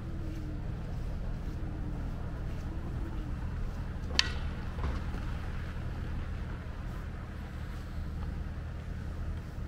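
Steady low outdoor rumble of wind on the microphone and distant city traffic, with a single sharp wooden clack about four seconds in as the two training sticks knock together, and a fainter knock just after.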